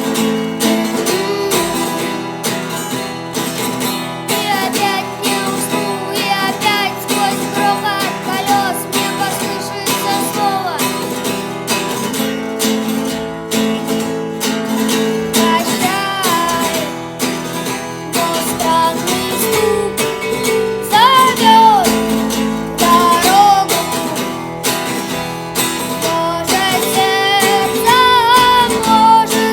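Acoustic guitar strumming chords, with a wavering melody line over it that rises and swells twice, once about two-thirds of the way in and again near the end.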